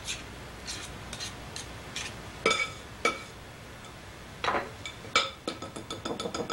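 Metal pastry blender and knife scraping and clinking against a glass mixing bowl while cutting margarine into flour. Scattered ringing clinks at first, then a quick run of clinks near the end.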